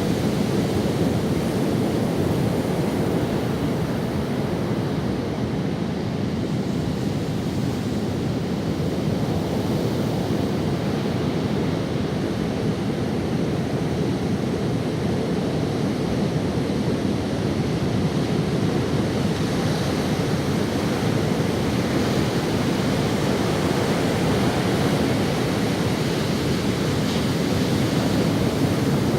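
Ocean waves washing onto a sandy beach: a steady surf rush with gentle swells, with some wind on the microphone.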